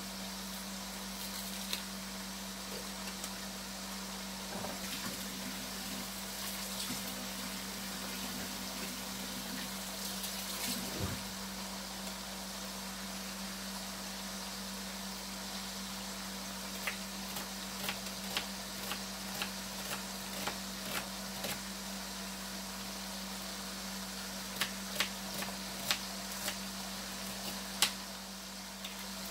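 Knife chopping an onion on a plastic cutting board: a run of sharp taps, about two a second, starting a little past halfway, then a quicker group near the end. A steady hiss and low hum lie underneath.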